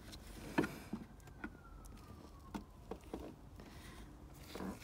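A flat-blade screwdriver prying at the air-filter box's peg in its dried rubber mount: scattered small clicks and knocks of metal on plastic and rubber, about half a dozen. A faint thin whine falls slowly in pitch in the background about a second in.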